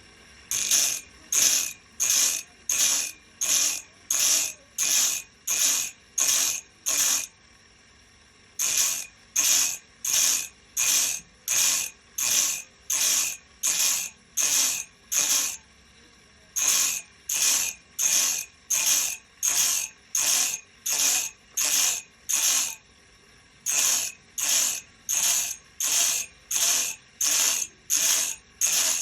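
Sawmill saw blade being worked on its teeth, likely sharpened: even, rasping metal-on-metal strokes, about one and a half a second, in runs of roughly ten with short pauses between runs.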